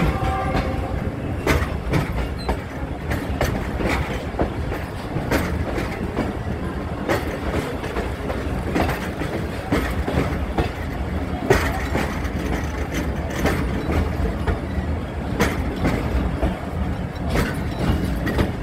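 Express passenger train running at speed, heard from an open coach door: a steady rumble with the wheels clattering over rail joints in irregular knocks.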